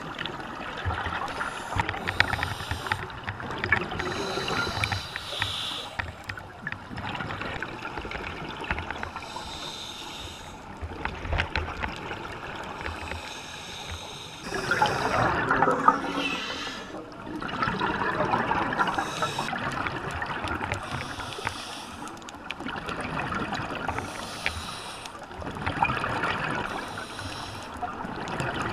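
Scuba diver breathing through a regulator underwater: long surges of exhaled air bubbling out every few seconds, with a steady crackle of bubbles and water between them.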